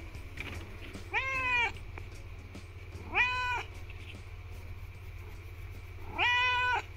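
Russian Blue cat meowing three times, short calls a couple of seconds apart, begging for food.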